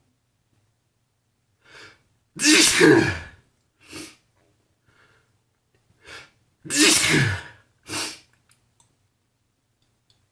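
A man sneezing loudly twice, about four seconds apart, each sneeze with a short breath sound just before it and a brief sharp sound just after.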